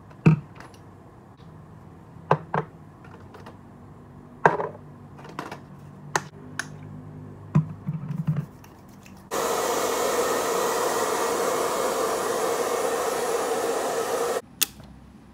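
A few sharp clicks and knocks of objects being handled, then a small electric appliance starts up about nine seconds in. It runs with a steady, even rushing noise for about five seconds and cuts off suddenly.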